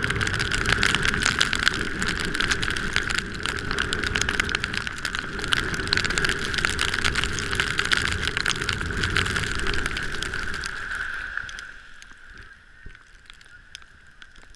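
Vehicle moving over a snow-covered road: steady road and tyre noise with a constant high tone and dense fine crackling. It falls away sharply about twelve seconds in as the vehicle slows.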